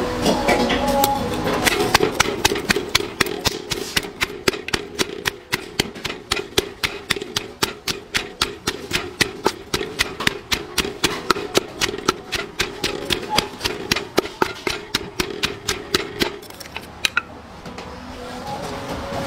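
Wooden pestle pounding chillies in a large mortar: a steady run of knocks, about four a second, that stops near the end.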